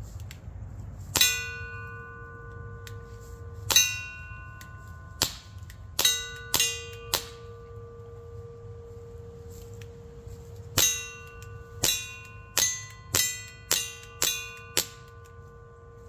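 Barra Schofield CO2 air revolver firing BBs at a steel target: twelve sharp shots, each with a clang and a ringing note from the steel plate. They come as six shots, a pause of about three seconds, then six more in quicker succession.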